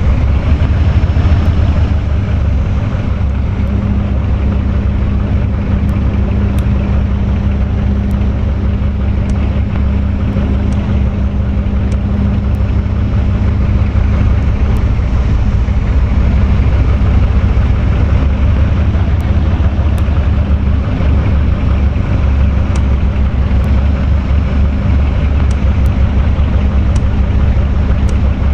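Electric fan running steadily: a constant motor hum over a strong low rumble of moving air from the spinning blades.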